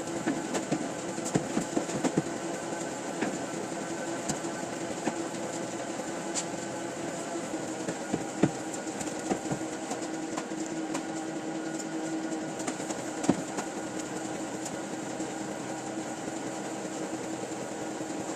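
Printing-press machinery running steadily, a constant mechanical hum with irregular sharp clicks and a few louder knocks.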